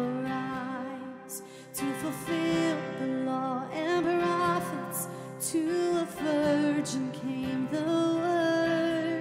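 A woman singing a worship song, holding long notes, with a man playing an acoustic guitar.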